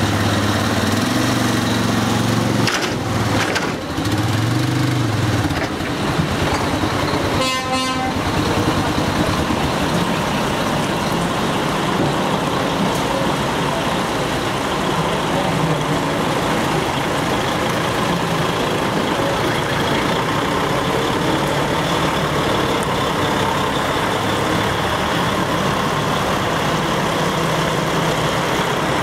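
Heavy truck diesel engines running as trucks move through the paddock. A horn gives one short toot about seven seconds in.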